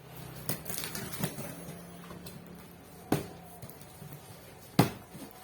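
Handling noises with a few sharp knocks, the loudest about three seconds in and near the end, over a faint steady hum that stops a little after the middle.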